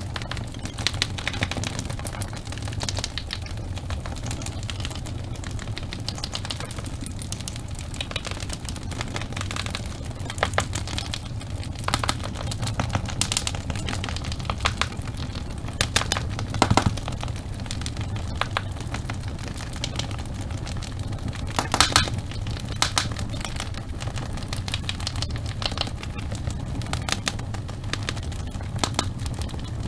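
Wood fire in a fireplace crackling steadily, with irregular sharp pops over a low steady rumble; the loudest pops come about 17 and 22 seconds in.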